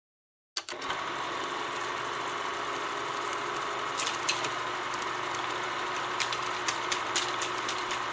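Film projector running: a steady mechanical whirr with a hiss and scattered clicks and crackles. It starts abruptly about half a second in.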